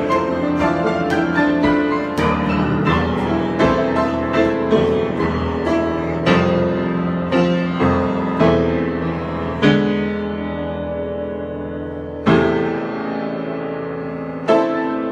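Piano improvisation: a flowing run of notes that slows into a few single struck chords near the end, each left to ring and fade.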